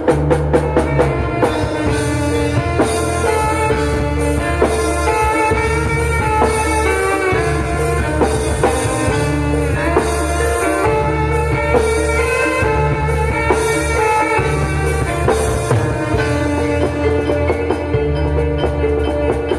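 Javanese gamelan ensemble music through a sound system: a kendang hand drum and metallophones struck with mallets play a continuous, busy melody over a heavy bass line that comes in blocks of a second or two.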